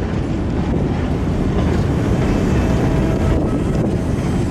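A freight train of empty cement wagons rolling past close by: a steady noise of steel wheels running on the rails, with wind buffeting the microphone.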